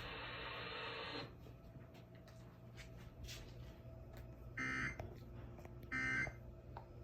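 Emergency Alert System end-of-message data bursts on a weather-radio broadcast: two short, buzzy digital chirps a little over a second apart, signalling the end of the tornado warning. Before them, about a second of radio hiss cuts off.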